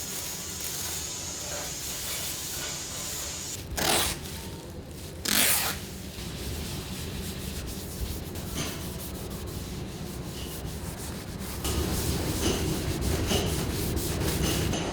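Sanding on a car body panel to prepare it for paint: a steady scratchy rubbing that grows louder near the end. Two brief, louder bursts of noise interrupt it about four and five and a half seconds in.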